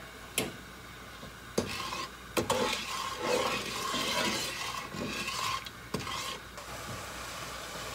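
Spatula stirring sugar and water in a non-stick pot to dissolve the sugar into syrup, scraping and swishing round the bottom with a few light knocks. The stirring stops about six and a half seconds in.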